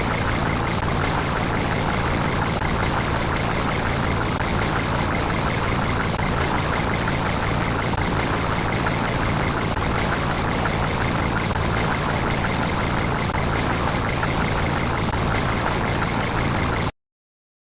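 A steady running engine sound that cuts off abruptly near the end.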